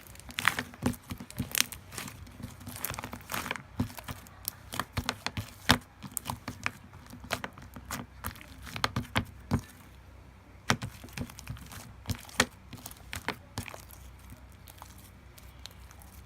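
Slime being squeezed and pressed by hand, giving irregular sharp clicks, pops and crackles, most frequent in the first half and sparser after about ten seconds in.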